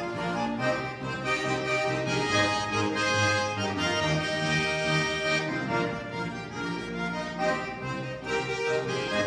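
Four Schwyzerörgeli (Swiss diatonic button accordions) playing a Swiss folk tune together, sustained chords over a pulsing bass.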